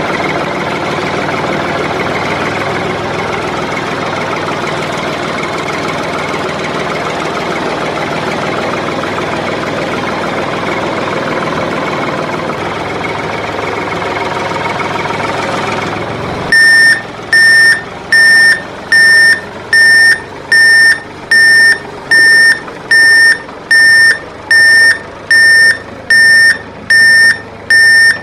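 A steady engine running sound that cuts off about sixteen seconds in. A loud electronic reversing beeper then takes over, one high beep repeating a little faster than once a second.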